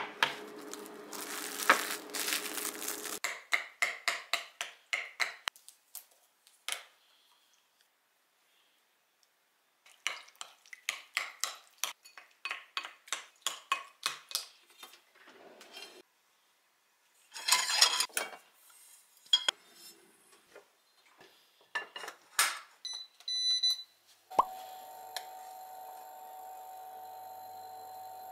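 Plastic cling wrap crinkling as it is pulled over a glass bowl, then a wooden spoon clicking against a glass bowl in quick even strokes, about three a second, while a mixture is stirred, with scattered clinks after. Near the end a steady electrical hum with a held tone starts, from the induction hob under a frying pan.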